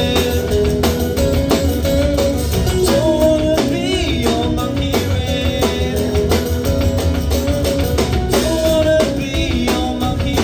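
Music with a steady beat: a rock-style band track with drum kit and guitar.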